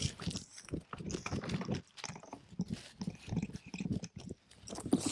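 An African lion chewing and biting on a GoPro camera right at the microphone: irregular crunches and clicks of teeth on the camera body.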